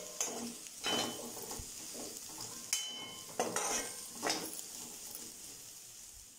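A metal spatula scraping and turning diced potatoes around a steel kadai, with the oil sizzling under them. There are several sharp scrapes in the first few seconds, and the sound fades off near the end. The potatoes are partly cooked.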